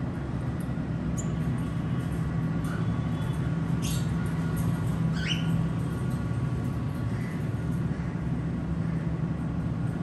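A few short, high chirps and squeaks from pet parrots, one sweeping up in pitch about five seconds in, over a steady low rumble.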